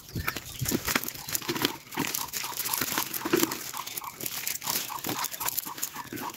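Dry leaves, grass and a cast net rustling and crackling as small fish are picked out of the net by hand, with short repeated high animal calls in the second half.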